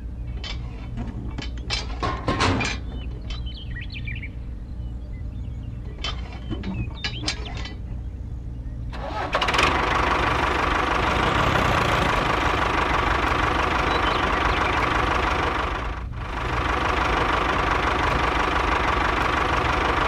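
Plastic parts of a toy tractor and trolley clicking as they are hooked together. About nine seconds in, the model tractor's small motor starts running loudly and steadily with a whine, cutting out briefly near sixteen seconds before running on.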